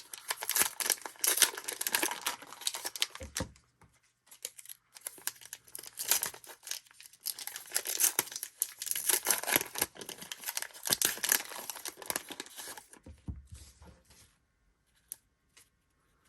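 Foil wrappers of baseball card hobby packs being torn open and crinkled by hand, in two long spells of tearing and rustling. A few light clicks follow near the end as the handling stops.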